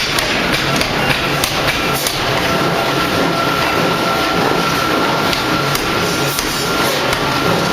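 Forging machinery running: a dense, continuous clatter of metal knocks over a steady industrial din, with a steady high whine coming in about two and a half seconds in.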